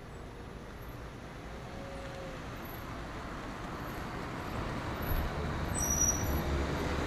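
Road traffic: a motor vehicle's noise builds up as it approaches, with a low rumble growing louder over the last couple of seconds.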